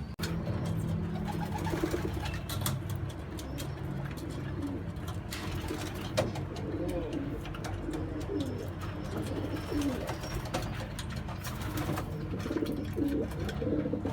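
Pigeons cooing repeatedly in low, swooping calls, with many scattered sharp clicks and taps throughout.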